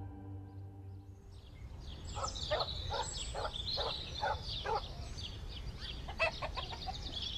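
Chickens clucking in a run of short repeated calls, with small birds chirping high over them. The calls begin about a second and a half in.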